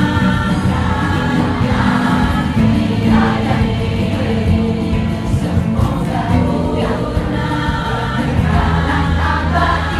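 A choir singing together through stage microphones, many voices in harmony holding long notes without a break.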